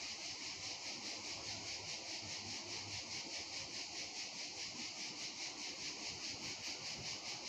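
A high-pitched outdoor insect chorus chirring steadily in a fast, even pulse of several beats a second, over a faint low background rumble.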